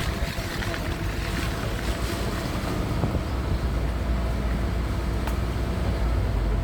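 Steady low rumble of a motor vehicle, with wind noise on the microphone.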